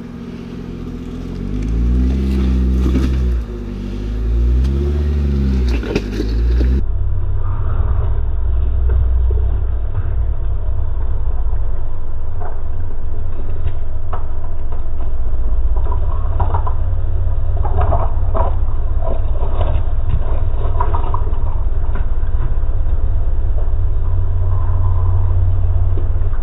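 Jeep Wrangler engine revving up and down in bursts as it crawls over rock ledges. About seven seconds in, the sound gives way to a steady low rumble with scattered crunches and scrapes of tyres on rock.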